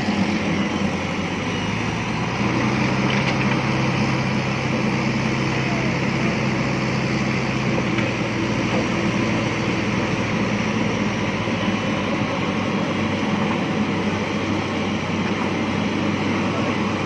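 Heavy diesel engine of a construction machine running steadily, its speed picking up slightly about a second and a half in and easing back down about two-thirds of the way through.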